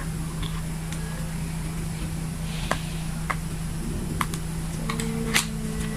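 A mosquito-patch pack being opened by hand: several light clicks and a brief soft rustle of packaging, the last click the loudest, over a steady low hum.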